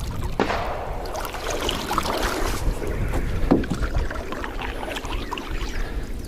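Small boat moving on a lake: water sloshing and splashing around the hull, with a couple of sharp knocks against the boat.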